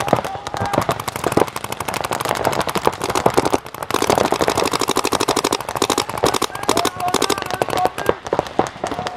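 Paintball markers firing rapid, overlapping streams of shots, a dense unbroken popping with no let-up.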